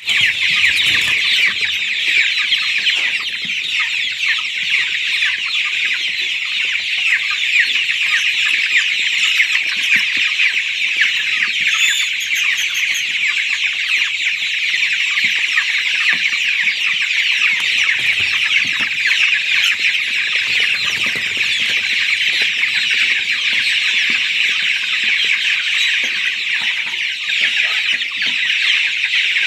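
A flock of young improved Kienyeji chicks, about four weeks old, peeping together in a constant, dense chorus of high chirps.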